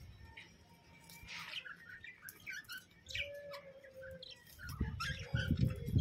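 Caged budgerigars chirping and chattering in short, scattered calls, with a low rumble near the end.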